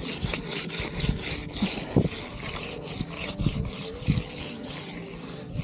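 Quick repeated scratchy strokes of a finishing tool rubbing across a fresh concrete surface, with a few dull knocks underneath.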